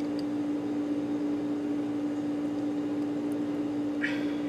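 Steady electrical appliance hum: one constant tone over a faint hiss, with a brief faint rustle about four seconds in.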